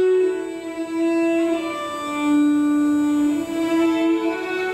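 Violin playing a slow melody of long held notes that step down in pitch, rest on a low note, then climb again.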